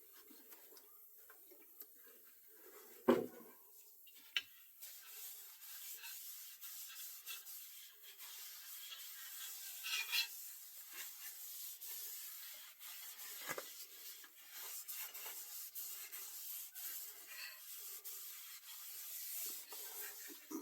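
A rag wiping down a wooden axe handle, an uneven, scuffing rub that keeps going. There is a sharp knock about three seconds in and a lighter one a second later.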